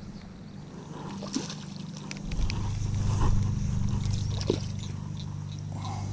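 Spinning reel being cranked as a small fish is reeled in to the bank, with light clicks and ticks from the reel and the handling of the rod. A steady low hum sets in about two seconds in and runs under it.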